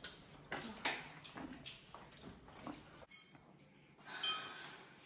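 Wooden apartment front door being opened and walked through: a series of light clicks and knocks from the door and footsteps, then a short high-pitched tone about four seconds in.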